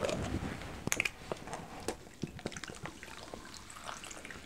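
Cola pouring into a cup of ice and fizzing, with scattered faint clicks and crackles.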